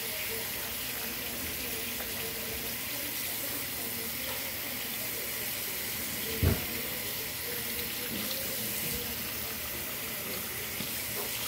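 Tap water running steadily into a sink, with a single dull thump about six and a half seconds in.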